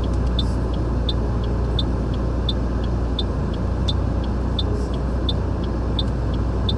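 Steady road and tyre rumble heard from inside a car driving on a snow-covered road. A turn-signal indicator ticks evenly through it, about three ticks a second, alternating loud and soft.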